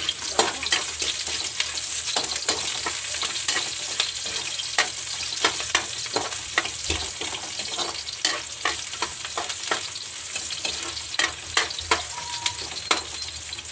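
Garlic and sliced onion sautéing in hot oil in a metal wok, sizzling steadily, with a spatula clicking and scraping against the pan many times as it is stirred.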